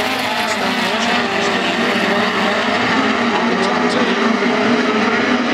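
Speedcars (midget race cars) racing, several engines running together in a steady drone whose pitch wavers as the cars circulate.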